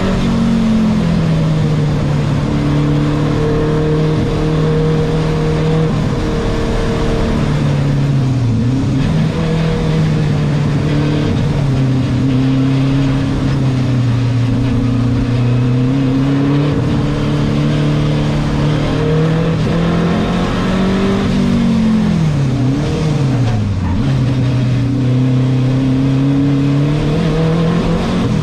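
Renault 5 Turbo 2's mid-mounted turbocharged four-cylinder engine heard from inside the cabin under hard driving, its pitch holding steady for stretches and stepping down with the gears. About two-thirds through, the revs dip sharply and then climb again.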